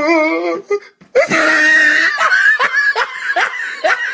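A meme sound clip of a person laughing hard in quick repeated bursts, starting about a second in, just after a short wavering vocal clip cuts off.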